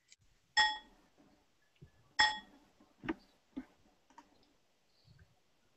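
A handful of short, sharp clicks in an otherwise quiet room: two louder ones about a second and a half apart, each with a brief ringing tone, then three softer ticks.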